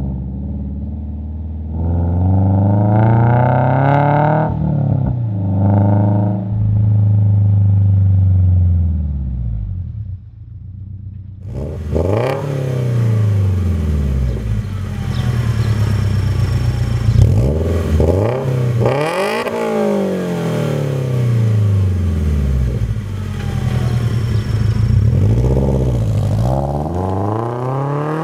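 Subaru BRZ's FA20 flat-four through an MXP Comp RS stainless-steel cat-back exhaust, accelerating with the pitch climbing and dropping at gear changes, then revved again and again, each rev rising and falling in pitch.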